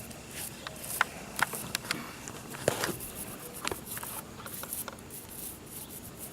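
Scattered sharp clicks and light scrapes from a Zippo lighter being handled and worked while it is cleaned with lighter fluid, thinning out towards the end.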